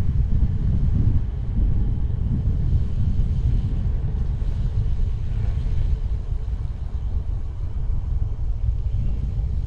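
Steady low rumble of wind on the microphone of a camera on a moving bicycle.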